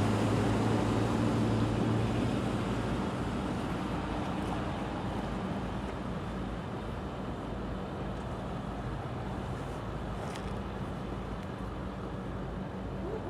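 Steady low rumble of a passing train, with an engine drone that fades after about two seconds while the rumble gradually eases off.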